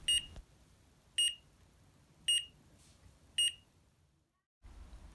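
BEEP base v3.2 hive-scale electronics giving four short, high beeps about a second apart: the signal that its batteries have been activated once the plastic battery holder is removed.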